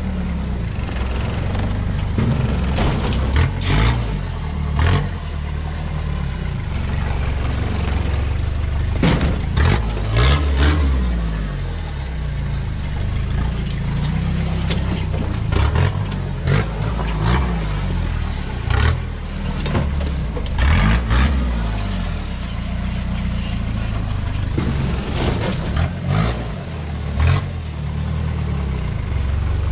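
Modified Toyota Hilux rock crawler's engine running under load as it climbs a rock ledge, revved in many short blips over a steady low drone.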